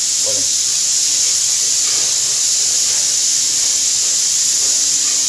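Steady, loud hiss from a pot of water heating on a gas stove burner.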